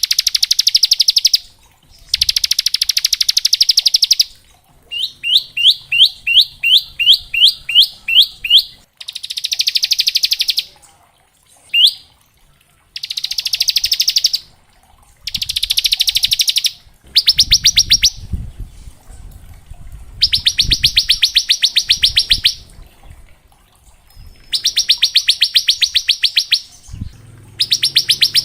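Bar-winged prinia (ciblek) singing in the 'ngebren' style: bursts of very fast buzzing trills, each lasting one to two seconds, with a run of about ten separate rising chirps a few seconds in. Low thumps sound beneath the song in the second half.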